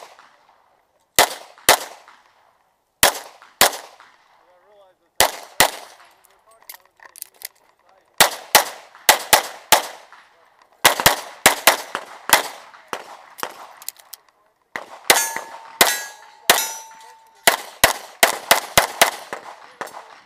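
A CZ Shadow 2 9mm pistol firing a USPSA stage string: shots mostly in quick pairs with short pauses between, then faster runs of shots in the second half. A metallic ringing tone sounds between the shots for about two seconds in the second half.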